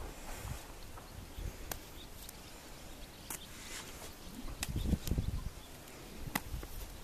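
Saddled horse shifting about on a dirt corral floor close by: soft hoof steps with several sharp clicks and taps, and a louder low thump about five seconds in.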